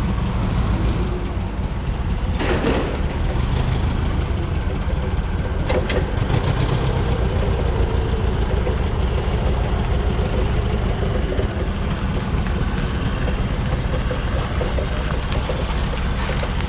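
Heavy diesel engine idling steadily, with a couple of brief metallic knocks in the first few seconds.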